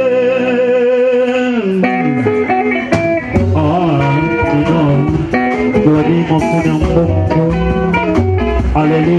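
Live band music with electric guitar over drum kit and percussion. A held, wavering note fills the first two seconds, then the guitar lines and drums come in strongly about three seconds in.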